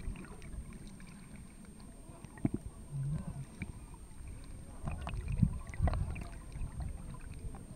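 Muffled underwater sound of a snorkeler swimming: low rumbling water noise with a few dull knocks and sloshes from the swimming strokes, busiest in the second half.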